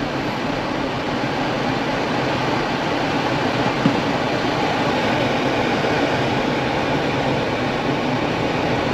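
Steady in-cabin drive noise of a Ford Bronco on a snowy road: tyre and wind rush, with one short tap about four seconds in.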